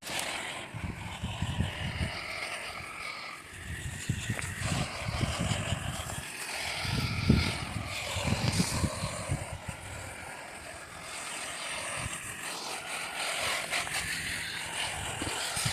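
Wind buffeting the microphone in irregular low gusts, strongest a little past the middle, over a steady hiss.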